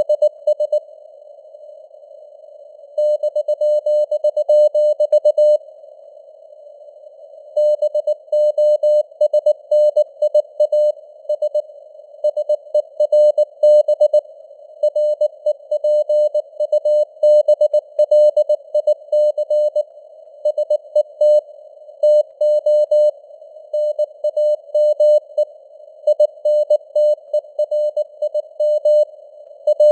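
Morse code at 19 words per minute: a single steady mid-pitched tone keyed into rapid dots and dashes over a narrow band of simulated radio hiss. The signal strength fades up and down, and the sending pauses twice for a couple of seconds, about a second in and again around six seconds in.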